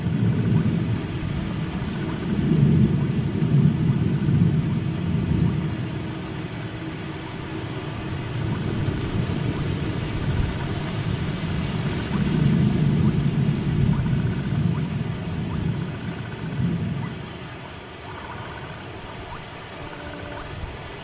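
Steady heavy rain on open grassland, with low rumbles of thunder that swell and fade three times. Faint sustained musical notes come in near the end.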